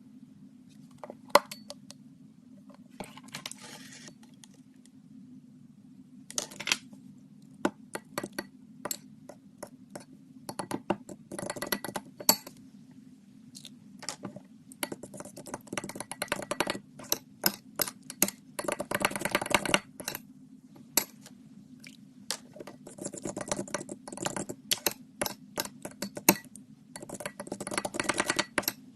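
Slime being squished and poked by hand, giving irregular clicks and crackly pops that come in quick clusters, thicker in the second half, over a steady low hum.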